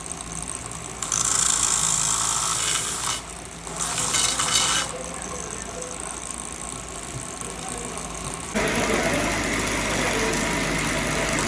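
An engine running steadily, with two loud bursts of hissing about a second and four seconds in, and a louder rushing noise starting about eight and a half seconds in.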